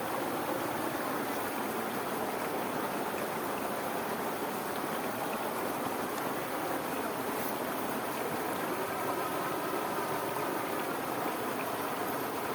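Fast irrigation-channel water rushing steadily where it pours over a waterfall into a whirlpool.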